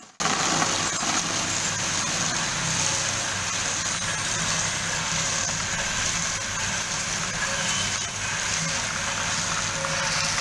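Cocoa bean roasting machine running: a steady rushing noise over a faint low motor hum.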